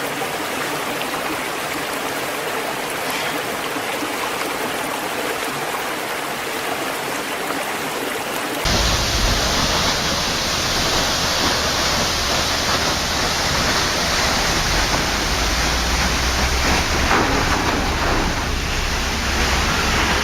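Rushing water, a steady even noise. About eight and a half seconds in it cuts abruptly to a louder, deeper rushing with a strong low rumble.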